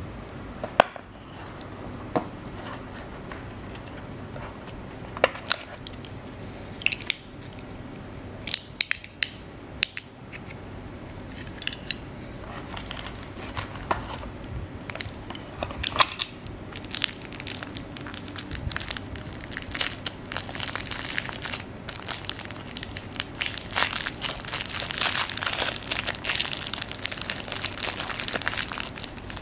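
Unboxing handling noise: scattered clicks and taps from a cardboard box being opened, then clear plastic packaging crinkling and crackling, becoming denser and louder in the second half.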